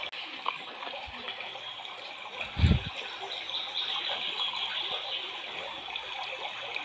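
Steady rushing and splashing of water, with one low thump a little under three seconds in.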